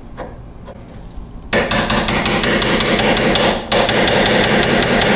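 Hammer tapping a brass punch to drift a steel night sight sideways into the dovetail of a pistol slide: a rapid, steady run of sharp metallic taps, about five a second, starting about a second and a half in, with a short break partway through.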